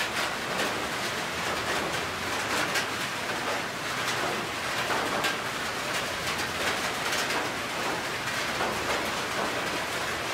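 Steady rain falling on a corrugated metal roof, a dense, even patter of drops.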